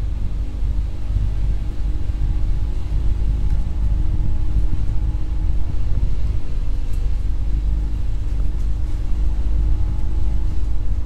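A vehicle's engine running steadily while driving along, with a heavy low rumble.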